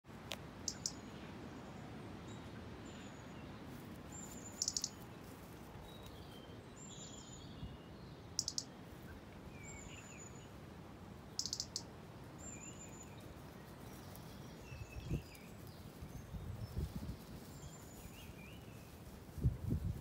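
European robin giving alarm calls, warning of a predator: short, sharp ticking calls and thin, very high notes repeated every few seconds, with fainter chirps from other birds. A few low thumps near the end.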